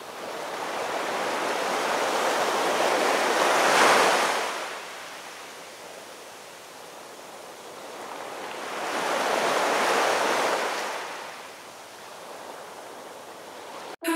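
Ocean surf: waves break and wash up a beach, swelling twice, loudest about four seconds in and again around ten seconds, with quieter wash between. The sound cuts off abruptly near the end.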